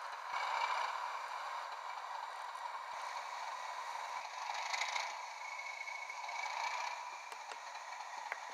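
Bachmann OO gauge Class 37 model locomotive's DCC sound decoder playing a diesel engine running, heard through the model's tiny speaker: thin, with no deep bass. It swells a little about half a second in and again around five seconds.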